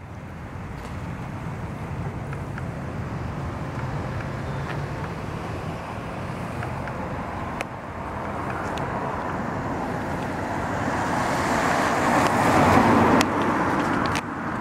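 Road traffic noise, with one vehicle getting louder near the end and then falling away.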